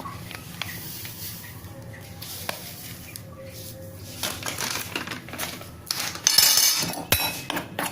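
A spoon scraping and clinking in a bowl as gram-flour batter ingredients are mixed. It starts with light, scattered taps and grows louder and busier about halfway through.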